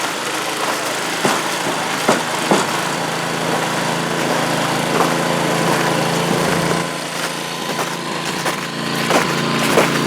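An engine running steadily, a constant hum with a noisy rush over it and scattered light clicks.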